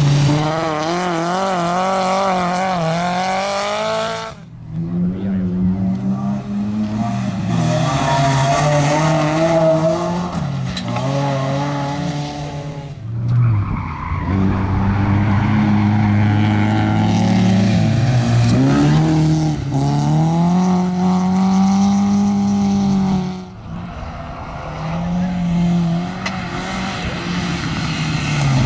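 Rally cars driven hard on a dirt stage, one after another: engines revving up and dropping back with gear changes and lifts, tyres sliding on the loose surface. The sound breaks off abruptly three times as one car gives way to the next.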